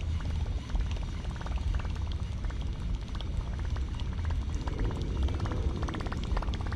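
Topwater retrieve of a Plopper lure: irregular light ticks and clicks from the lure and reel as it is cranked in, over a steady low rumble.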